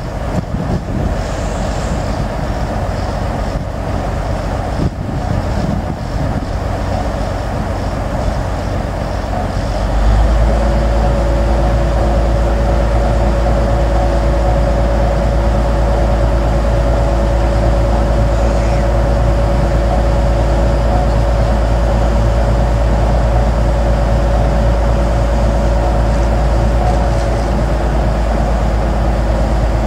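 Old crawler crane's engine running steadily as it lowers a narrowboat on its slings. It gets louder about ten seconds in, with a steady low rumble and a held droning tone over it, and wind buffets the microphone before that.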